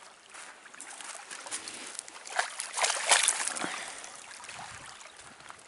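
A dog wading in shallow lake water, with irregular splashing that builds to its loudest about three seconds in, then eases off.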